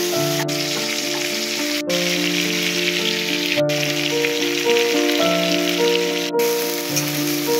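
Giant freshwater prawns and spice pastes frying in oil in a wok, a steady sizzle, under background music with a slow stepping melody and bass line. The sound drops out for an instant a few times.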